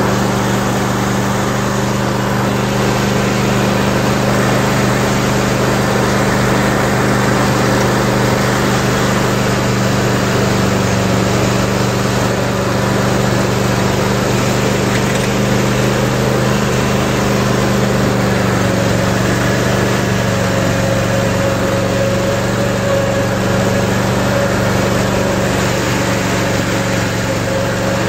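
Cub Cadet RZT zero-turn mower's engine running steadily while it tows a sprayer cart across the lawn. A higher tone joins the hum about twenty seconds in.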